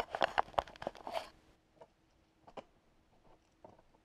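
Handling on a wooden workbench, with wood pieces and clamps knocked and shifted: a quick run of sharp knocks and clicks over the first second and a half, then only a few faint clicks.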